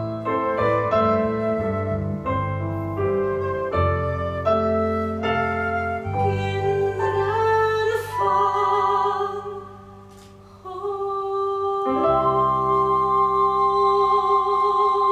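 Piano accompaniment with a woman singing a musical-theatre number. The piano moves through chords, then in the second half the singer holds long notes with vibrato, dropping off briefly before a final sustained note over the piano.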